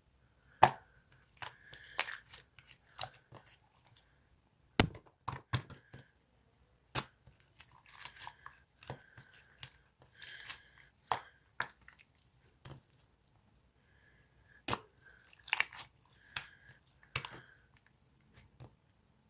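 Gold pearl slime being squeezed, stretched and pressed by hand: irregular sticky squelches, crackles and sharp pops as air pockets burst, several a second in clusters with short pauses between.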